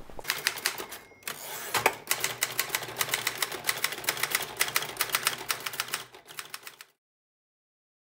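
Typewriter typing: a rapid run of key strikes with a short pause about a second in, stopping abruptly near the end.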